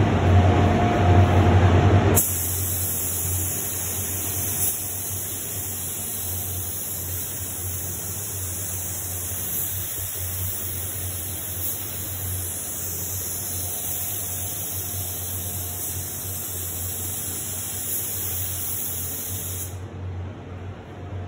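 Compressed air hissing through an automotive paint spray gun as base coat is sprayed: a steady high hiss that starts abruptly about two seconds in and cuts off near the end, after a louder rushing noise at the start. A steady low hum runs underneath.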